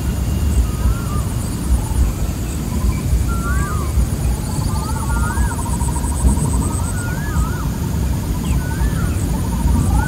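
Birds calling with many short, looping whistles, with a fast pulsing trill in the middle, over a high-pitched insect buzz. A loud low rumble runs under it all.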